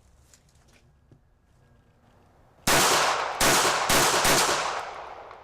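A .380 semi-automatic pistol fired four times in quick succession, starting about two and a half seconds in, each report trailed by a long echoing tail. These are the last rounds of the magazine.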